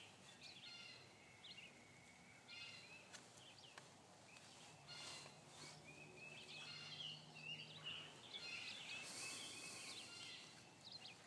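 Faint outdoor ambience of small birds chirping and calling now and then, with a few soft rustles.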